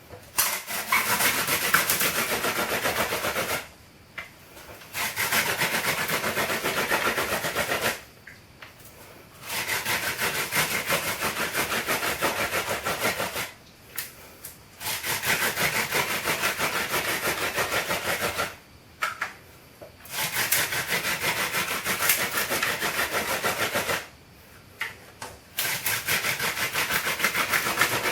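Hand-drill fire making with a mullein spindle spun back and forth between rubber-soled shoes, its tip grinding into a wooden fireboard to build up an ember. The sound comes as six spells of rapid rubbing, each three to four seconds long, separated by brief pauses.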